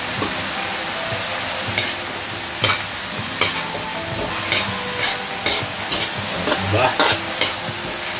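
Julienned carrots and onions sizzling in a hot metal wok. From about two seconds in, a metal ladle scrapes and knocks against the wok as the vegetables are stirred, every half second or so.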